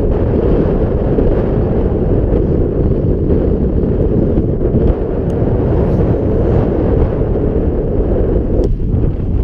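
Wind buffeting the microphone of an action camera on open water: a steady, loud, low rumble.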